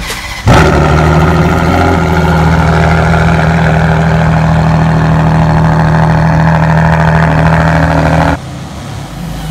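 Ferrari Enzo's V12 engine starting from cold: it fires suddenly and loudly about half a second in, then runs at a steady, even idle until it cuts off abruptly near the end.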